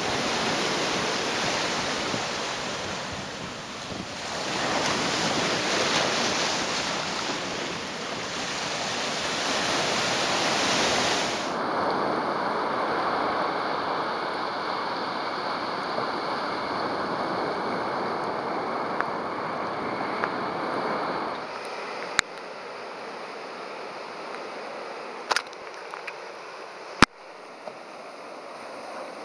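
Ocean surf washing over a rocky shoreline, a steady rushing wash that swells and ebbs. About 12 s in the wash changes to a softer sound, and about 21 s in it drops much quieter, with a few sharp clicks near the end.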